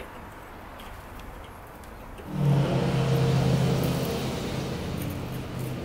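A motor starts abruptly about two seconds in and runs with a steady low hum, then slowly fades.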